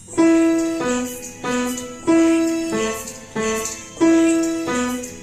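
Piano playing a simple melody one note at a time, about one and a half notes a second, each note struck and then fading.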